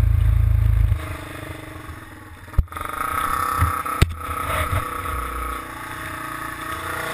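Polaris Outlaw 500 quad's single-cylinder four-stroke engine running while riding a dirt trail, with a heavy low rumble for about the first second. Two sharp knocks come about a second and a half apart, and the engine pitch starts to rise near the end.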